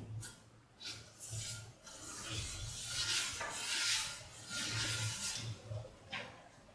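Cloth wiping a thin film of oil across the surface of a heated pan: several rasping rubbing strokes that die away near the end.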